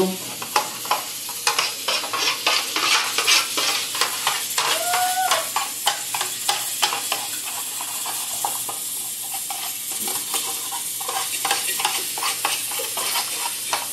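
A metal spoon stirring a thick sauce in an aluminium baking tray: irregular scrapes and taps of the spoon against the tray, with wet squelching.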